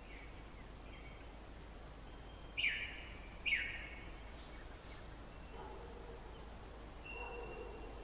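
Two short bird calls, each sweeping downward, about a second apart, with a few fainter bird notes over a quiet background and a steady low hum.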